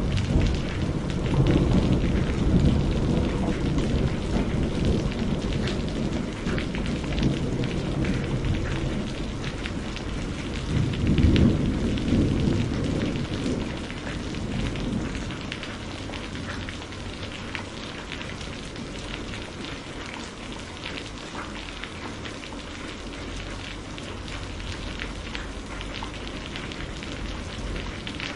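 Steady rain with thunder rumbling: one long rumble at the start and a louder one about eleven seconds in, dying away after the middle to leave the rain alone.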